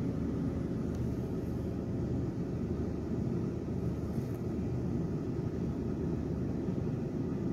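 Steady low hum of a car engine idling with the air conditioning running, heard from inside the cabin.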